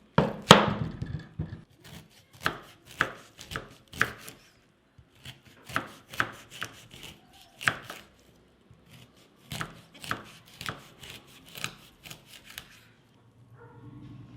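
Kitchen knife chopping food on a cutting board: separate, sharp strikes, one or two a second, that stop near the end.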